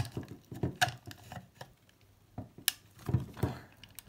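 Screwdriver working at the hinge of a plastic bottle security cap: irregular sharp clicks and duller knocks of metal on hard plastic as the cap is pried.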